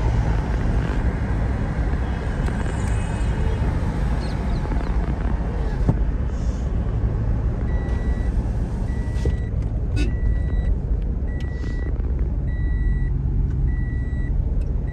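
Road and engine noise inside a moving taxi's cabin: a steady low rumble. About halfway through, an electronic beep starts repeating about once a second, each beep about half a second long.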